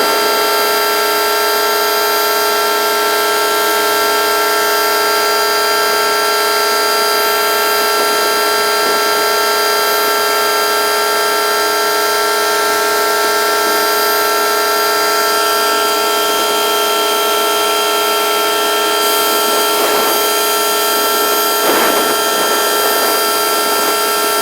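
A ZOOMLION concrete pump truck running under load to drive its hydraulic boom: a loud, steady, high mechanical whine made of several fixed tones that do not rise or fall.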